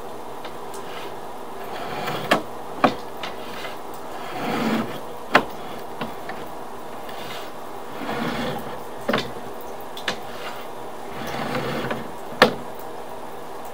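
Sewer inspection camera's push cable being pulled back out of the pipe: slow swells of rubbing and scraping every few seconds, with sharp clicks and knocks in between.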